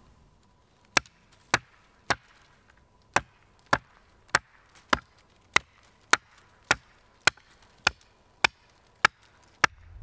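A thin sapling being chopped through at its base with a hand blade: about fifteen sharp blows, roughly two a second, starting about a second in.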